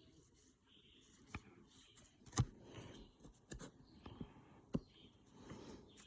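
Trading cards being handled and flipped through: a soft sliding rustle with several sharp clicks of card against card, the loudest about two and a half seconds in.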